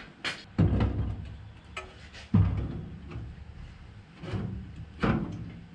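Heavy metal parts of a Toyota FJ40's steering and pedal assemblies being worked in and out of the cab, giving about five irregular clunks and knocks against the body, each with a short low ring.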